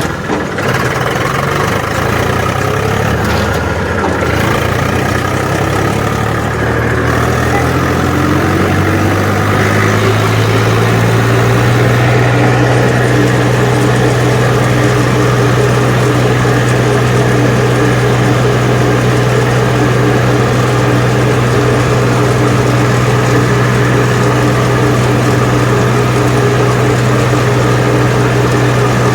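Eicher 380 tractor's diesel engine running, its pitch shifting over the first ten seconds or so, then holding steady at constant revs.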